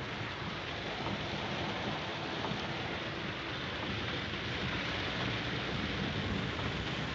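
Monsoon waterfall beside a road, water pouring and cascading steadily.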